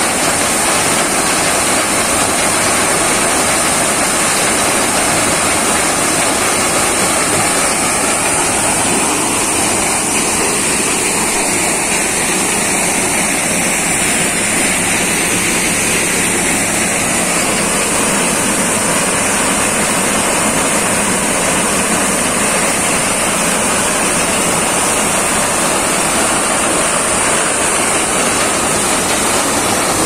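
Tractor-driven maize sheller running steadily: a loud, even rushing of the threshing drum and blower as shelled corn kernels stream from the outlet spout, with a steady high-pitched hiss over it and the tractor's engine underneath.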